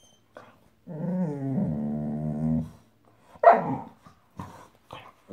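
A five-month-old Boxador puppy (Boxer–Labrador mix) gives a drawn-out growl at her new toy pig. About three and a half seconds in she gives one loud bark, then two short, quieter yaps.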